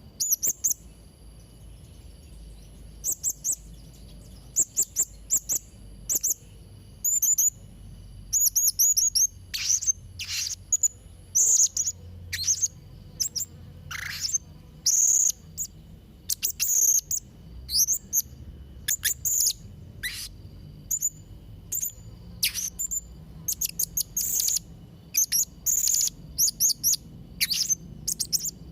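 Blue-crowned hanging parrot (serindit) calling: shrill, very high-pitched short chirps and quick trills in rapid clusters, busiest from about a third of the way in. A faint steady high tone runs underneath.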